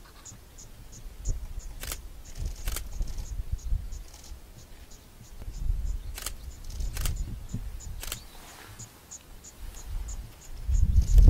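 An insect chirping in short, high, evenly spaced pulses about three times a second, over a low rumble. A few sharp clicks come through, and the rumble swells loudly just before the end.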